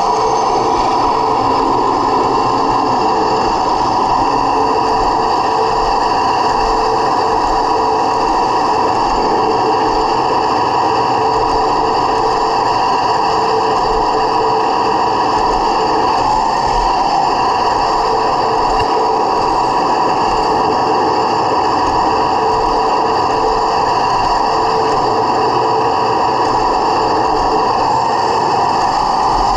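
1/16-scale Heng Long T-90 RC tank, heard from the camera on its own hull, driving with a steady whine and drone that does not let up.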